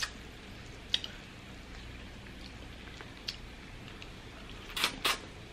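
Close-up wet mouth sounds of eating a sauce-coated shrimp: a few sharp lip smacks and clicks, with a quick double smack near the end the loudest.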